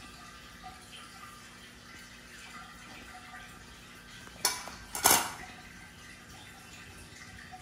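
Two metal clinks about half a second apart, the second louder and ringing briefly: a cut-off tin can lid being set down on a counter.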